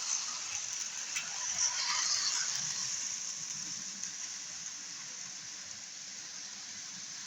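Hornby OO gauge Class 56 model diesel locomotive running slowly on its track: a steady high hiss of the small motor and gears with a faint low hum, growing slightly fainter over the first few seconds.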